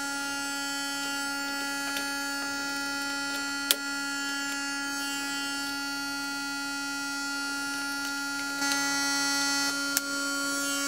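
Eurorack bitcrusher module's output: a sine wave with its bits swapped, a steady buzzy tone full of harsh overtones. A few sharp clicks as patch cables are plugged in, and about eight and a half seconds in the tone changes and gets a little louder as the bit patching changes.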